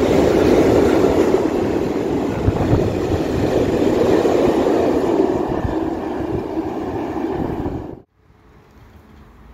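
Freight train of open-top wagons passing at speed: a steady, loud clatter and rumble of wheels on the rails. It cuts off suddenly about eight seconds in, leaving only faint background.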